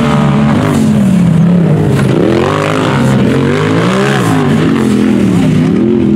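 Rock bouncer race buggies' engines revving hard as they launch off the start and accelerate up the course, the pitch dipping and climbing again several times.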